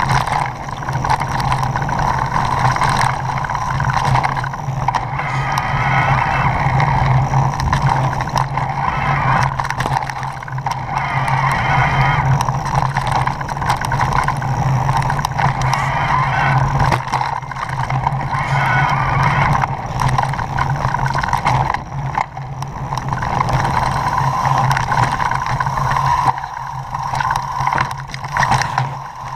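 Small off-road motorbike engine running steadily at a near-constant pitch while riding a rough dirt trail, easing off briefly a few times.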